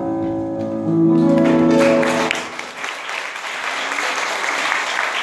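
The song's accompaniment ends on a held chord, cut off about two seconds in, as audience applause rises and carries on steadily to the end.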